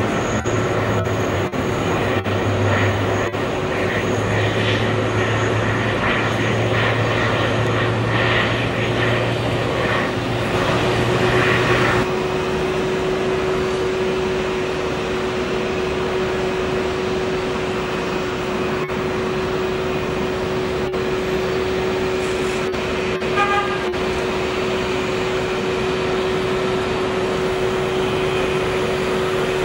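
Airbus A380's jet engines at idle as it taxis: a steady drone with a steady hum tone through it. A lower rumble cuts off about twelve seconds in.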